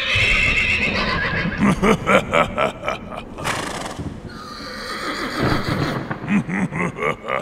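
Recorded horse whinny and snorting played through the speaker of an animatronic Halloween horse prop: a long whinny, then a run of quick pulses, a breathy hiss about four seconds in, and more short pulses near the end.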